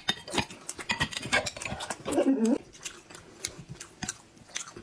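Close-up eating sounds: many quick wet clicks and smacks of chewing mouths, with chopsticks clicking on plates. About two seconds in comes a short vocal sound that slides in pitch, like a hummed 'mm'.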